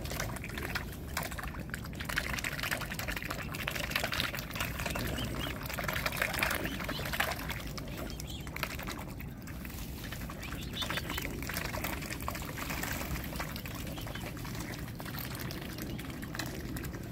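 Water splashing and sloshing close by as mute swans and cygnets feed, dipping their bills and heads into the shallows, an irregular run of small wet splashes.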